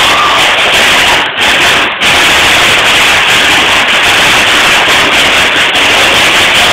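A percussion ensemble playing fast on a row of drums, so loud for the phone microphone that the sound is heavily distorted into a dense, crackling noise. The sound dips out briefly twice, about a second and two seconds in.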